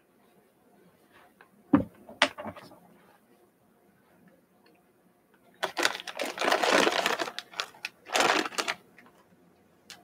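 Plastic candy bag crinkling and rustling as it is handled, in a long spell of about three seconds followed by a shorter one. A couple of sharp knocks come about two seconds in.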